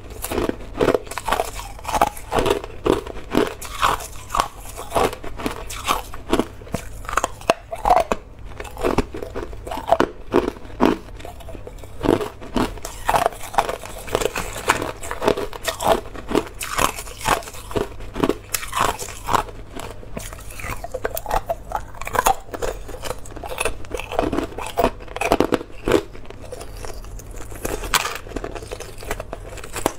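Hard, clear ice cubes being crunched between the teeth: a fast, irregular run of sharp crunches, several a second, that keeps going without a break.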